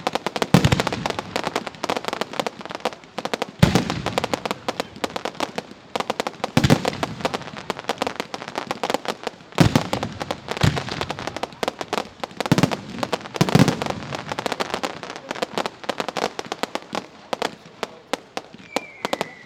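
Fireworks display: dense, rapid crackling from crackle effects, with deep shell bursts every one to three seconds. A falling whistle starts just before the end.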